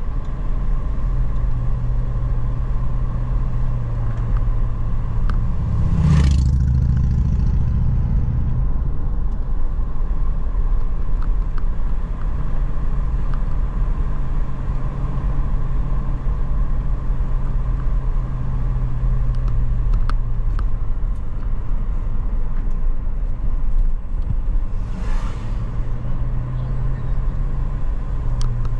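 Car engine and road noise while driving, a steady hum whose engine note drops away twice and comes back. There are two brief, louder whooshes, about six seconds in and again near the end.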